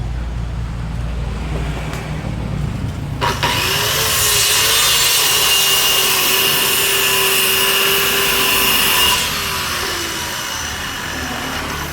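Low hum, then an electric power tool starts about three seconds in and cuts wood with a steady whine for about six seconds before it winds down.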